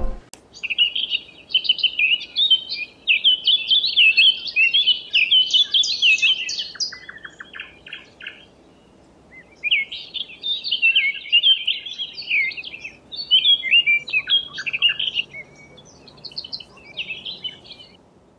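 Small songbirds chirping and twittering in rapid high phrases, in two long bouts with a short pause near the middle.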